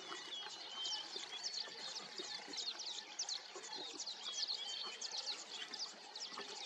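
A chorus of many small birds chirping and twittering, a rapid, overlapping stream of short high calls.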